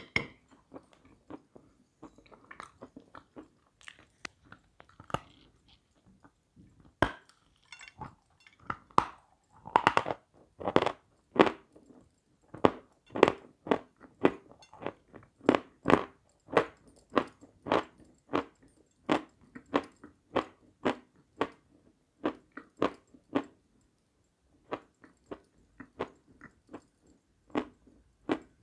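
Close-up crunching and chewing of lumps of Sevryukovo natural chalk, bite after bite, in a steady run of about two crunches a second that goes quieter after a short pause near the end.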